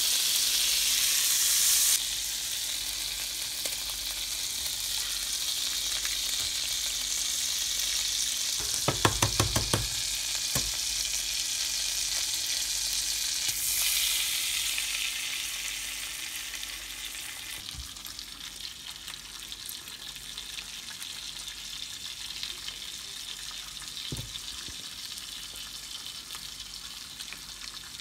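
Butter sizzling and frying in a hot nonstick skillet. About nine seconds in there is a quick run of sharp knocks. A little later the sizzle flares up as eggs go into the hot butter, then settles to a quieter, gentler fry.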